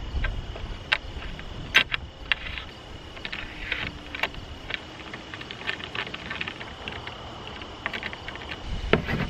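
Scattered light clicks and scrapes of Kreg Accu-Cut aluminium guide-track sections and connector bars being fitted together by hand, over low wind rumble on the microphone.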